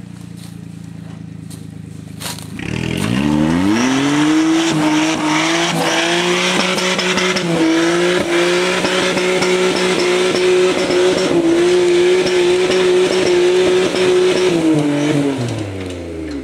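Suzuki Jimny JA11's F6A three-cylinder turbo engine, idling at first, then revved up sharply about three seconds in and held at high revs for some ten seconds before dropping back near the end. Scattered knocks and rattles run through it.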